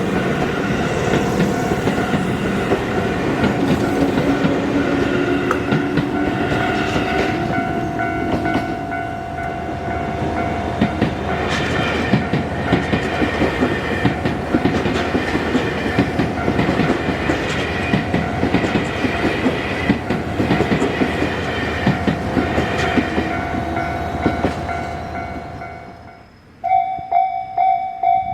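An electric train passing over a level crossing, its wheels clicking over the rail joints, while the crossing's warning bell rings steadily. Near the end the sound cuts off abruptly, and a crossing warning bell rings on its own in a fast, even ding-ding.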